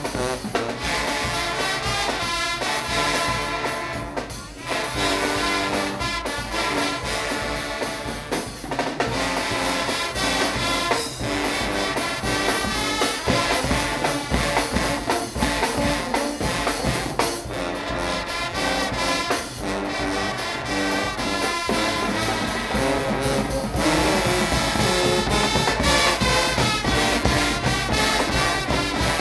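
Guggenmusik band playing carnival brass music: trumpets and trombones over a steady beat of drums. The band gets louder about three quarters of the way through.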